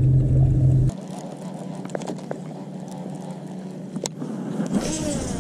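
Steady low hum of the boat's motor that cuts off abruptly about a second in, followed by quieter handling of a baitcasting rod and reel with a few light clicks.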